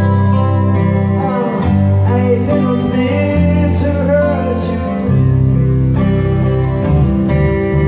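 Live band music: electric guitar, bass guitar and drums playing, with a male voice singing.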